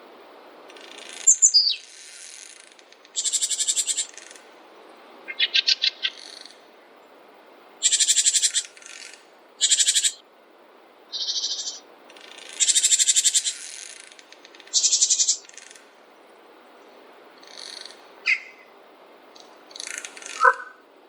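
Small forest songbirds singing: a run of short, high, trilled phrases every second or two, fainter toward the end, over a steady background hiss.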